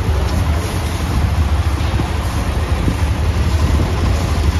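Hero motorcycle engine idling steadily while it is checked for a jingling rattle that the owner hears from the engine.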